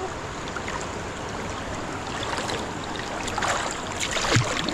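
Fast-flowing floodwater of a swollen stream rushing steadily, with a couple of short louder noises near the end.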